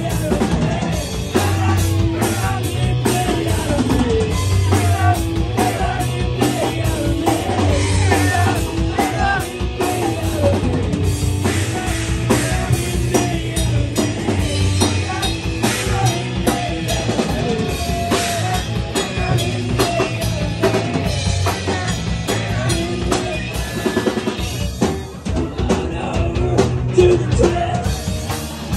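Live rock band playing an instrumental passage: drum kit, bass and electric guitar, loud and steady, with a run of drum hits near the end.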